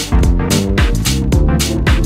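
Background electronic dance music with a steady beat of about four drum hits a second over a bass line.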